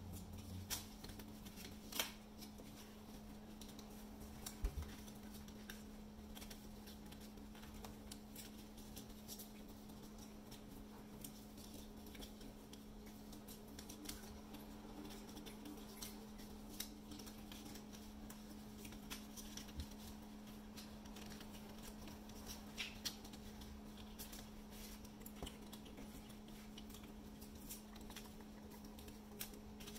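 Faint handling of paper: white card circles being folded and pressed flat on a tabletop, with scattered light clicks and taps, two sharper ones about 2 and 5 seconds in, over a steady low hum.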